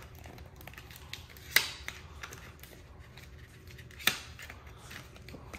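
A product box and its packaging being handled and opened: light ticks and rustles, with two sharper clicks about a second and a half in and about four seconds in.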